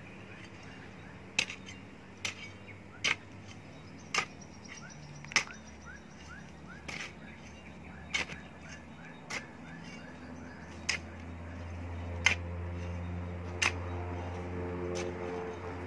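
A garden hoe chopping into a heap of soil potting mix: a sharp strike about every second as the blade bites in and turns the soil. A low steady hum swells in the last few seconds.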